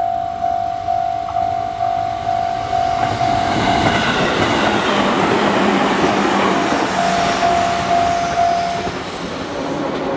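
Japanese level-crossing warning bell ringing at about two dings a second. About four seconds in, the rush and rail clatter of a passing electric train builds and drowns it. The bell stops shortly before the end while the train noise goes on.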